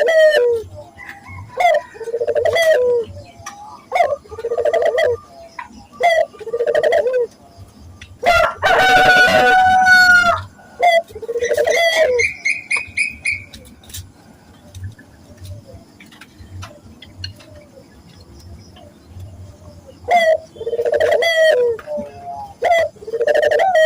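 Puter doves (collared doves) cooing in repeated phrases of low, rolling coo notes. A rooster crows once, loud and about two seconds long, about a third of the way in. A short high trill follows soon after.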